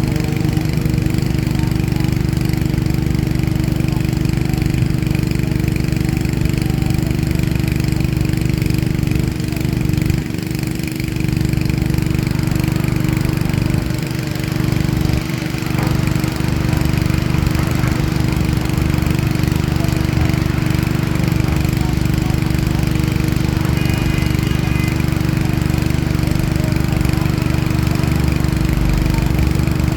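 Diesel engine of a CAT excavator running steadily under load, with brief small dips in level about ten and fourteen seconds in.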